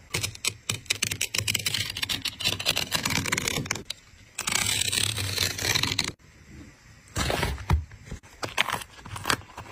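Stitching being picked and torn out around a sneaker's insole board with a small hand tool: rapid ticks and snaps of thread with scraping. A steady scrape lasts about two seconds near the middle, then separate snaps follow.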